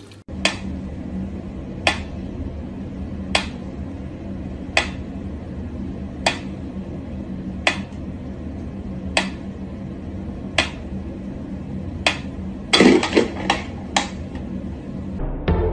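Mechanical pendulum metronome ticking slowly, one sharp tick about every one and a half seconds, over a steady low hum. About 13 seconds in there is a short burst of louder clatter.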